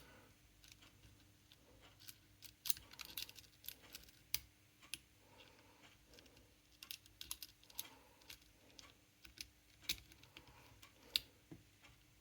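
Lock pick and tension bar working in the pins of a see-through practice padlock: faint, irregular small clicks and taps as pins are lifted and set.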